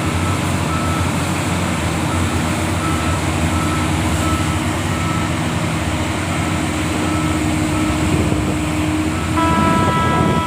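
Diesel engines of heavy mining machinery running steadily, with a reversing alarm beeping at an even pace. Near the end a longer steady tone, horn-like, comes in over it.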